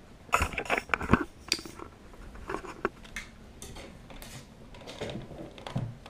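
Handling noise on a workbench: a quick cluster of light clicks and rattles in the first second and a half, then a few scattered small clicks, as a stainless rudder cable and a plastic footbrace are picked up and moved about.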